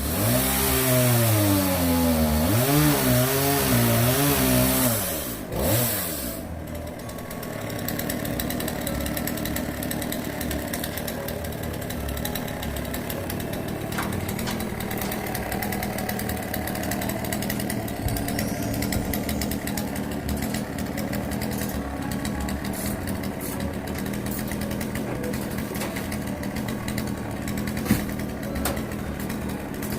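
A loud motor-driven machine running with its pitch rising and falling several times, cutting out about five or six seconds in; an engine then runs steadily at a lower level.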